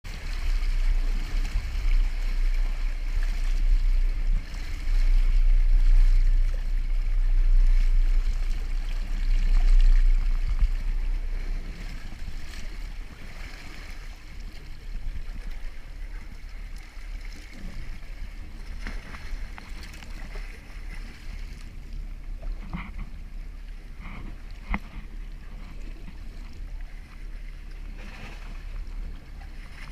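Sea water sloshing and splashing around a camera held at the surface, with a heavy low rumble for about the first ten seconds that then drops away to quieter lapping and a few sharp knocks.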